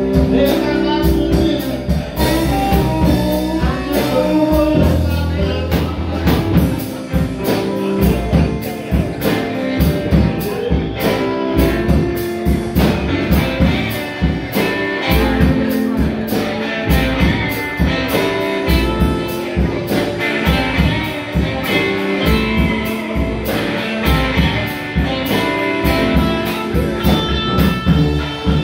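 Live band playing: electric guitars, bass guitar and a drum kit keeping a steady beat, with a singer at the microphone.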